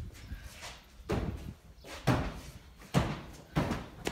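Basketball bouncing on the floor four times at uneven intervals. Each thud echoes briefly off the corrugated iron walls of the shed.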